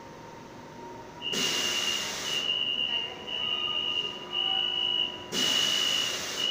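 Stopped R42 subway train at the platform: a high steady tone comes on about a second in and runs on with short breaks. Two bursts of air hiss come with it, one about a second long and another near the end.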